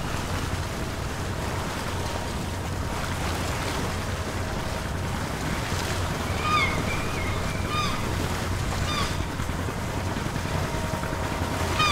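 Wind and choppy sea over the low, steady running of idling boat engines. A few short high chirps come in the middle.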